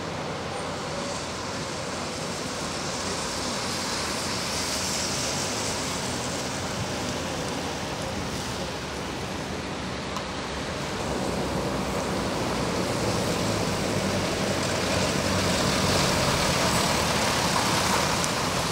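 Vehicles passing on a wet road, their tyres hissing through the water: first a Mercedes Sprinter ambulance van, then a Mercedes Unimog ambulance truck. The Unimog's diesel engine running grows louder from about halfway through as it comes close.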